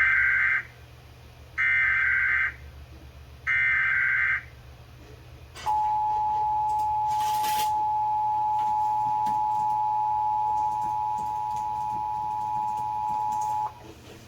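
Emergency Alert System test received on AM radio: three short bursts of SAME header data, each about a second long, then the EAS two-tone attention signal, a steady two-note tone held for about eight seconds before it cuts off. A steady low hum runs underneath.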